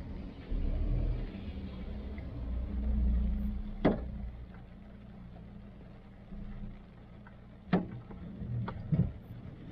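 Car standing in traffic with its engine idling, a low steady hum. Over it come sharp taps of heavy raindrops striking the car: one about four seconds in and a cluster of three near the end.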